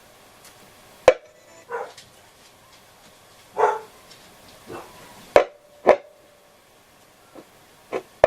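Hacker Super Sovereign RP75 transistor radio cutting in and out: loud pops and brief snatches of sound at irregular intervals, a few seconds apart. The dropouts are the sign of a bad connection, which the repairer puts down to tarnished amplifier pins.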